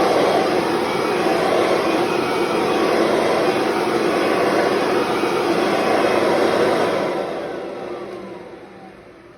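Kirby Sentria upright vacuum cleaner's motor running steadily at full speed, then switched off about seven seconds in and winding down with a falling whine. It sounds very healthy, with no noise from the transmission despite the reported transmission issues.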